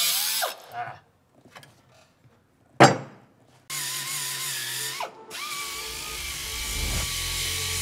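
Hand-held power tool working on the car's frame, running in short stretches as a steady whine over a hiss. A single sharp knock, the loudest sound, comes about three seconds in.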